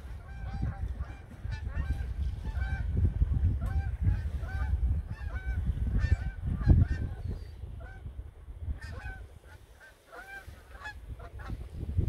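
A flock of geese flying overhead, honking over and over in short, overlapping calls, over a low rumble.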